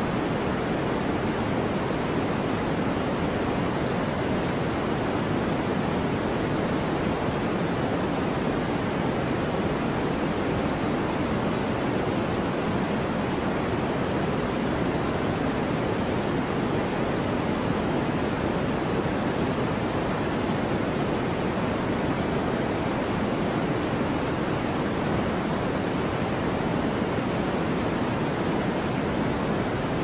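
Steady sleep white noise: an even, unchanging hiss weighted toward the low end, with no separate sounds in it.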